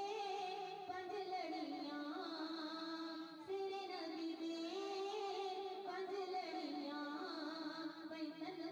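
Background music: a song with a singing voice carrying a melody over instrumental accompaniment.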